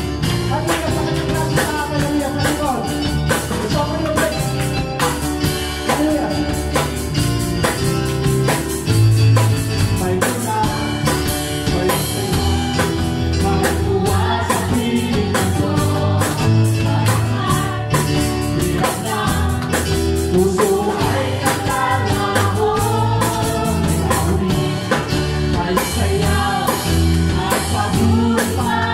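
Live worship band playing a praise song: singing over electric guitar and a drum kit with a steady beat.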